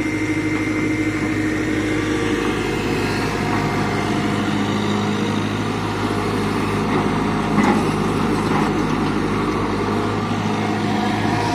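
Tata Hitachi 120H excavator's diesel engine running steadily under work, with a single short knock about eight seconds in.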